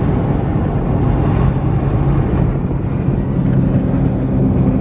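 Car driving, heard from inside the cabin: steady engine hum and road noise.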